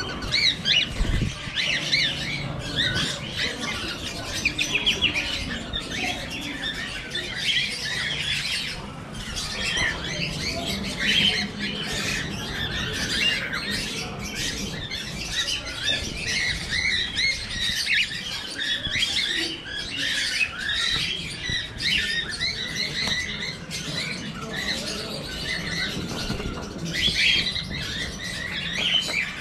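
A flock of cockatiels calling all together: a continuous jumble of short, high chirps and squawks. There is a brief low knock about a second in.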